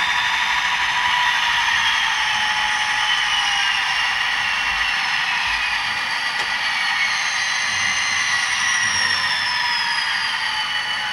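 Simulated diesel locomotive engine sound from a Soundtraxx Tsunami sound decoder in a model locomotive, played through its small speaker. It is thin, with little bass, and its pitch winds slowly down as the locomotive eases to a stop.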